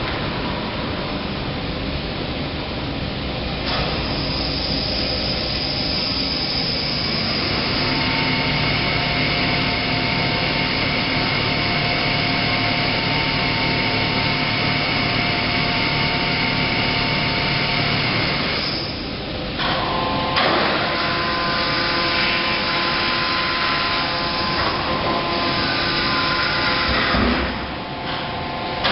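Overhead wood-chip grab crane running, its electric drives making a steady mechanical whine over constant machine noise as the grab is lowered onto the chip pile. The whine's pitch changes about two-thirds of the way through.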